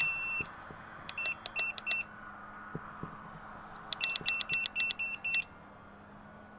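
RC transmitter beeping as the elevator trim is clicked, one beep per trim step: one longer beep, then a quick run of four short beeps, and later a run of about eight. Under the beeps is the faint steady whine of the Super Cub's electric motor in flight.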